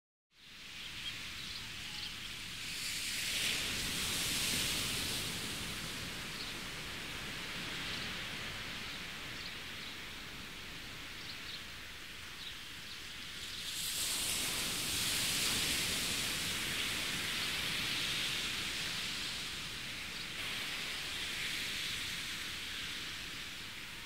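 Small waves washing onto a sandy beach: a steady hiss of water that rises and falls in slow surges, the louder ones about three seconds in and again about fourteen seconds in.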